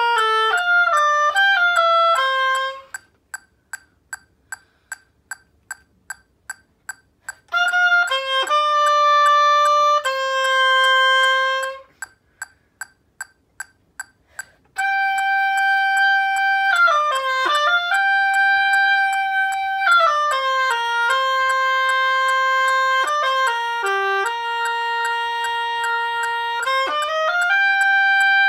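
Oboe playing phrases of held and stepping notes, with a Korg TM-50 metronome clicking steadily at 152 beats a minute. The clicks are heard alone in two pauses in the playing, one about three seconds in and one about twelve seconds in.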